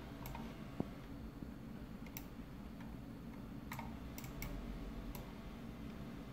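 Computer mouse button clicking, about half a dozen sharp, irregularly spaced clicks over a low steady hum.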